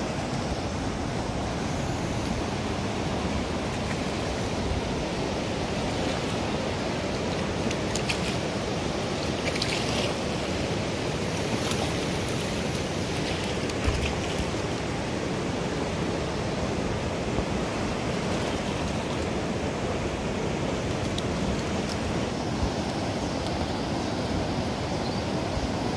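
Floodwater of a river in spate rushing past: a steady, even noise of fast-moving water.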